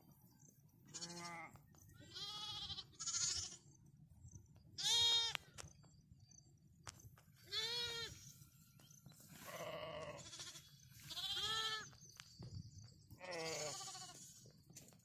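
Lamb bleating over and over, about eight wavering calls a second or two apart, calling for its mother.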